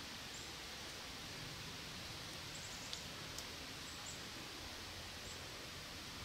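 Quiet woodland ambience: a steady faint hiss with a few short, high bird chirps, and two small ticks about three seconds in.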